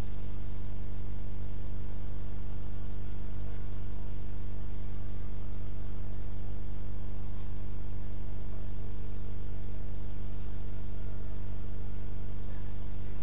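Steady electrical mains hum: a low buzz with many even overtones, under a constant hiss, unchanging throughout.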